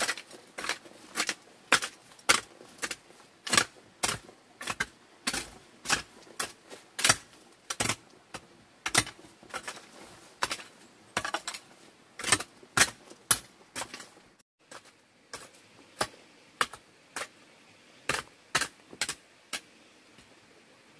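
A metal hoe chopping into dry, stony soil in a steady rhythm of sharp strikes, about two a second, with a short break about three-quarters of the way in, after which the strokes come more sparsely.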